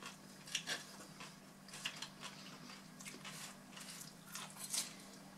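Quiet crunching as mouthfuls of raw napa cabbage salad are chewed, mixed with a few light clicks of forks on plates, at irregular moments over a steady low hum.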